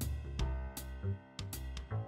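Background music with a drum-kit beat over steady bass notes.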